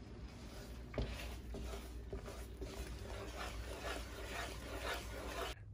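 Faint scraping and bubbling of a wooden spoon stirring thick bechamel sauce in a skillet.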